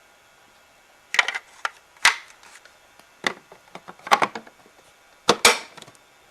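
Hard plastic parts of a Kenmore Elite upright vacuum cleaner being handled while the machine is off, giving a string of sharp clicks and clacks in uneven clusters, with a double clack near the end.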